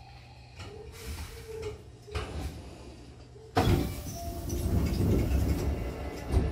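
Hankyu train's double sliding doors opening at a station: a sudden loud hiss as they start, the rumble of the panels sliding apart for about two seconds, and a sharp thump near the end as they reach their stops. Before that, a faint squeal as the train comes to a halt.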